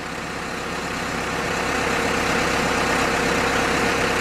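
HFDX-2 full hydraulic core drilling rig running: engine and hydraulic drive noise with a steady hum. It grows louder over the first two seconds, while the power head's speed lever is being worked, then holds steady.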